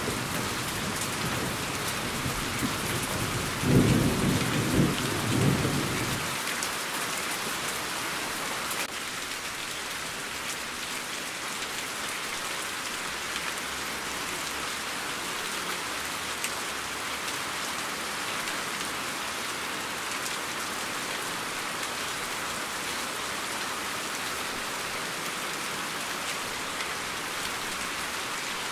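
Steady rain falling, with a rumble of thunder about four seconds in that dies away a couple of seconds later.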